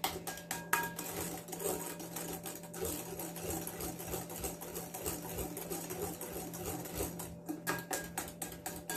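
Whisk beating eggs and sugar by hand in a glass bowl: a quick, rhythmic clicking and scraping of the whisk against the glass, about three strokes a second.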